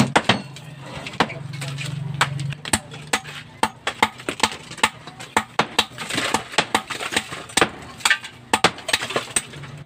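Repeated hammer blows on concrete hollow-block masonry, sharp irregular impacts about two or three a second with chips of concrete breaking away.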